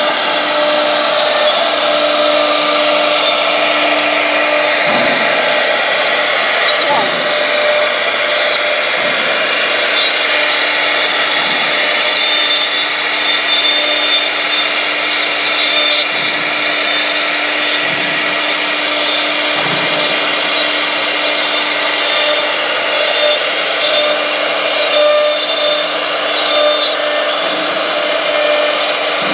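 CNC wood router's spindle running steadily at high speed, its carving bit cutting a floral relief into a wooden panel: a constant whine of several fixed tones over the rasping hiss of the cut.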